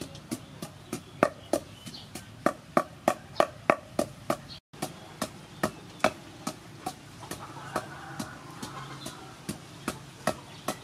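Wooden pestle pounding garlic in a wooden mortar: steady strikes at about three a second. The sound cuts out for a moment near the middle, and the strikes are softer in the second half.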